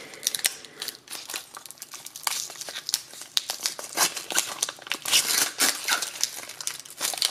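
Foil wrapper of a Pokémon booster pack crinkling and tearing as it is pulled open by hand: a run of irregular crackles, loudest about four to six seconds in.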